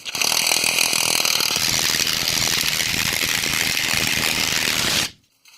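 Impact wrench running for about five seconds on a rear U-bolt nut of a 1997 Chevy 1500 until the nut breaks loose, then cutting off suddenly.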